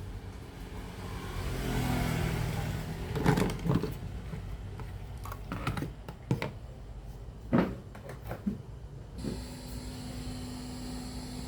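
Sony CFS-1110S cassette radio giving static hiss, with several sharp clicks and knocks from handling the set. About nine seconds in, a steady low hum and high whistling tones come in.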